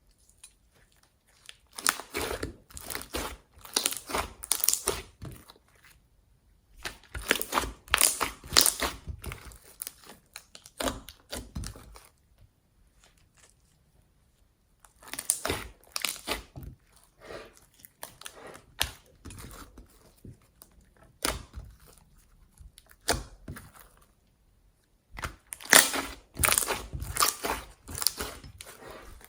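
Slime being squeezed and kneaded by hand, crackling and crinkling in bursts of a few seconds with short quiet pauses between them.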